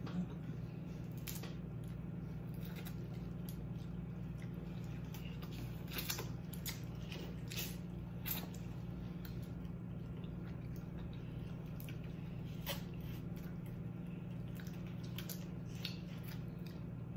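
Snow crab legs being eaten: shells cracking and snapping in scattered sharp clicks, with wet squishing and chewing, over a steady low hum.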